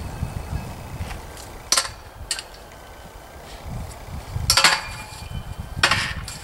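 Metal swing set frame clanking as it is shaken and pulled by hand: one sharp clank a little under two seconds in, a lighter one soon after, then two louder, longer rattling clanks in the second half.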